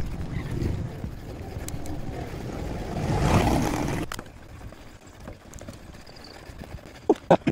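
Road noise while riding: steady traffic and wind rush, swelling as a vehicle passes about three seconds in, then quieter. Two short, sharp sounds near the end.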